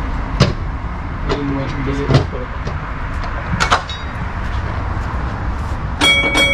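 Heritage electric tram running, a steady rumble from its motors and wheels with a few sharp clunks from the wheels over rail joints. Near the end, a clear ringing tone starts suddenly and holds.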